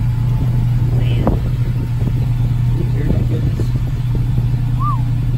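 Exhaust of a Ford Transit's 3.7-litre V6 idling steadily just after a cold start, heard close to the tailpipe as a steady low hum.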